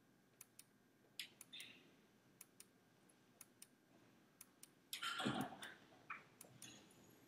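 Faint, regular clicking from the PID temperature controller's output relay switching on and off each one-second control cycle: two quick clicks about once a second. A brief louder rustle comes about five seconds in.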